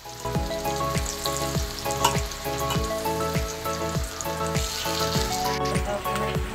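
Skunk vine pakoras deep-frying in hot oil in a kadai, a steady sizzle. Background music with a steady beat of about two kicks a second plays over it.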